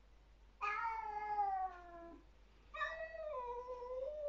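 A domestic cat yowling a warning at another cat in a territorial standoff. There are two long, drawn-out yowls: the first falls slowly in pitch over about a second and a half, and the second begins about three seconds in and wavers up and down in pitch.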